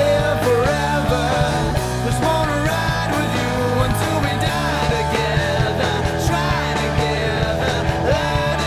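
Studio recording of a raw rock song: a full band with a steady, pulsing low end, and singing over it.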